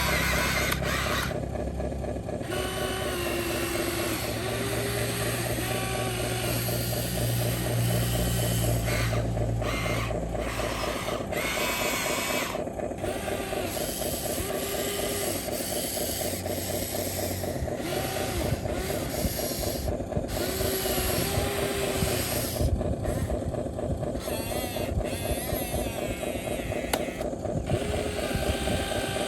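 Small electric motors and gearboxes of radio-controlled construction models whirring and buzzing steadily, with short higher blips now and then.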